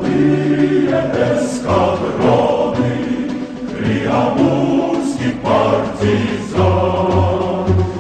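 Music with a choir singing over a pulsing low bass line.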